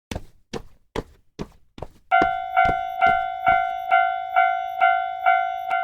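Five sharp knocks at an even pace of about two a second, then, about two seconds in, a Japanese railroad crossing alarm starts ringing its bright bell-like dings at the same pace.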